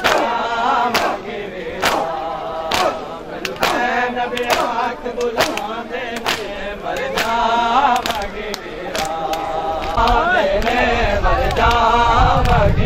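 Shia mourners doing hand matam: many men beating their chests in a steady rhythm of sharp slaps, about one to two a second, under a chanted lament from a group of male voices. A low rumble comes in near the end.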